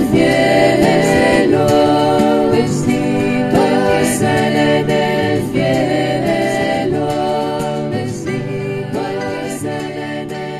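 Choir singing a Christian hymn in sustained, held notes, the music slowly fading out near the end.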